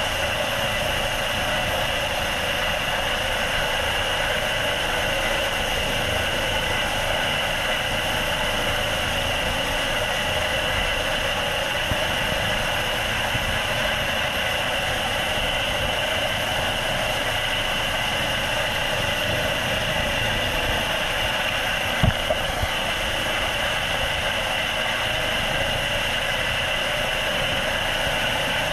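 Helicopter running steadily in a hover, heard from on board: a constant engine and rotor noise with a steady high whine. A brief knock comes about three-quarters of the way through.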